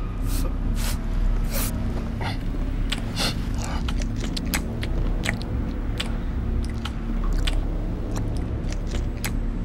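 A man chewing a mouthful of peeled hard-boiled egg, with wet, irregular smacking clicks several times a second, over a low steady hum.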